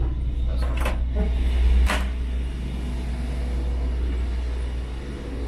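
Steady low drone inside a BR Class 159 diesel multiple unit, from its underfloor diesel engine, with a few clicks and knocks in the first two seconds, the sharpest about two seconds in.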